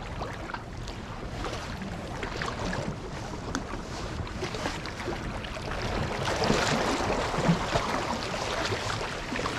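Small waves lapping and splashing against jetty rocks, with wind on the microphone. The wash swells louder from about six seconds in.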